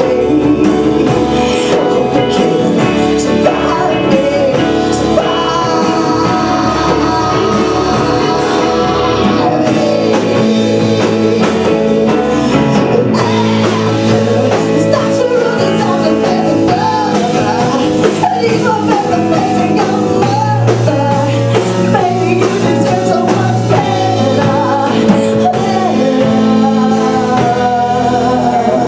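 A woman singing a grunge-style rock song with a live band of guitar, bass, keyboard and drums, the drums keeping a steady beat.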